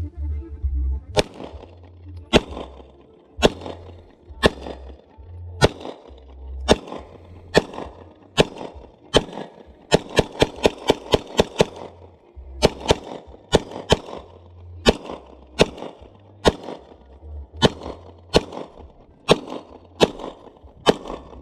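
Glock 9mm pistol firing: single shots about one a second, then a rapid string of about eight shots near the middle, then steady single shots again, around thirty shots in all.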